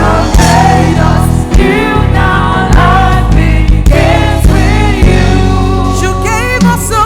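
Gospel worship music: a church worship team singing sustained, wavering notes over steady low bass accompaniment.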